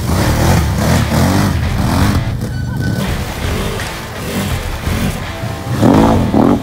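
Can-Am ATV engines revving up and down again and again while driven through mud and water, with music underneath. The loudest revs come near the end.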